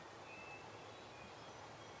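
Faint outdoor ambience: a steady low hiss with distant songbirds giving several brief, high chirps.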